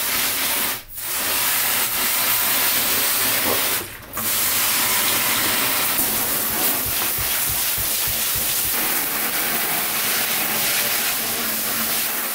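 Garden-hose pistol-grip spray nozzle blasting water against the fiberglass walls of a boat's head, rinsing off grinding dust: a loud, steady hiss that breaks off briefly twice, about a second in and about four seconds in, as the trigger is released.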